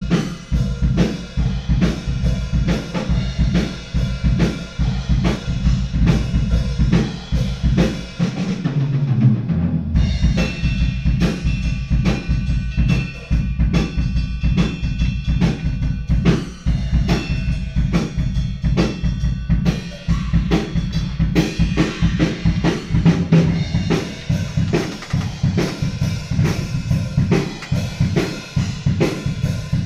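Drum kit playing a quick, steady beat over a low bass part. The bass slides down about eight seconds in, and the arrangement changes about ten seconds in.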